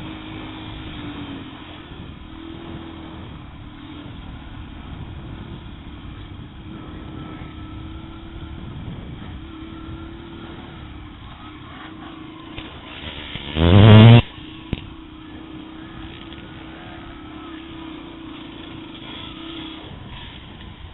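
Yamaha TTR125 dirt bike's small single-cylinder four-stroke engine running steadily while riding over a dirt track. About two-thirds through, a brief loud rev rises quickly in pitch and cuts off.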